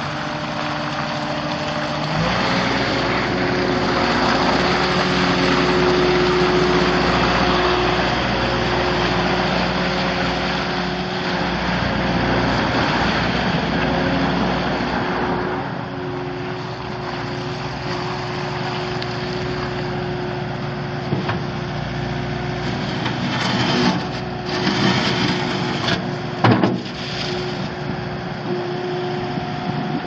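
Skid steer's Kubota V2607 2.6-litre diesel engine running. It rises in pitch about two seconds in and holds higher until about halfway, then settles back lower. A few clunks come near the end.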